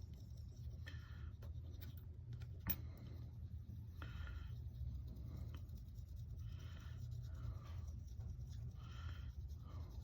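Polishing paste being rubbed onto a metal lighter cap with a cloth or pad: soft scrubbing strokes every two seconds or so, with a short click about two and a half seconds in.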